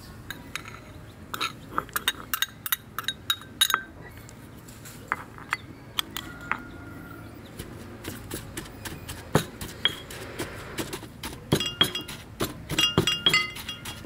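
Ceramic plates and a glass bowl clinking, with short scrapes and knocks, as curry pastes and spices are handled, and a stone pestle knocking in a stone mortar. The clinks come in bunches, densest near the end.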